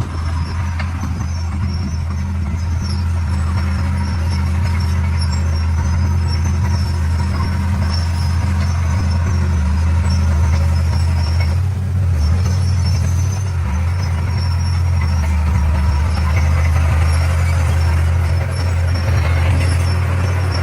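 D41 bulldozer's diesel engine running steadily at working speed, a deep continuous drone that eases briefly about halfway through, with a faint high-pitched whine over it.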